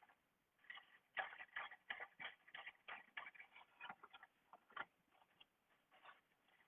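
Paintbrush dabbing and stroking paint onto a paper plate: a faint run of short brush strokes, about two or three a second, starting a little under a second in.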